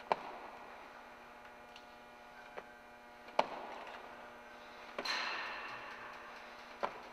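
A few single sharp knocks or taps, well apart, over a steady low hum; about five seconds in, a louder noisy stretch starts and slowly fades.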